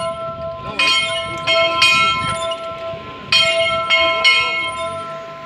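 Church bell ringing in groups of three strikes, twice, each tone ringing on between the strokes.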